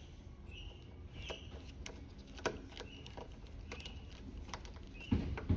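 Small irregular clicks and ticks of a Swiss Army knife's inline Phillips screwdriver being worked on a screw, with a couple of duller knocks near the end. Short bird chirps sound faintly behind.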